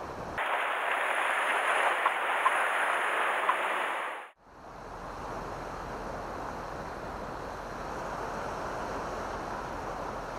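Surf washing against a rocky shoreline, with wind on the microphone. The sound cuts out briefly about four seconds in and comes back as a steadier, quieter wash.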